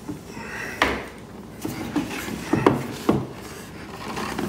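An upturned wooden stool being handled and turned on a hard floor: a handful of light wooden knocks and scrapes, spaced about a second apart.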